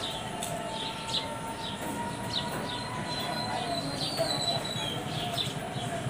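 House sparrows chirping: many short, falling chirps, several a second, irregular. Underneath them runs a long, held, slightly wavering tone in the background.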